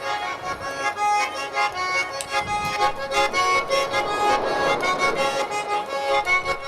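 Instrumental folk tune with held chords and quick, even notes.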